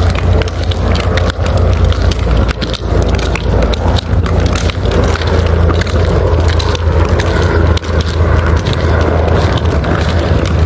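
Wind buffeting the phone's microphone: a loud, steady deep rumble with frequent crackles.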